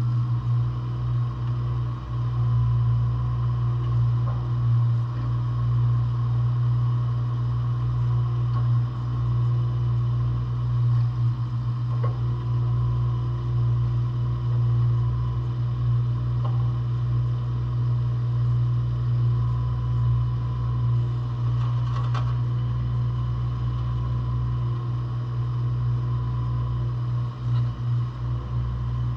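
Volvo EC18D mini excavator's diesel engine running steadily, with a few faint clicks.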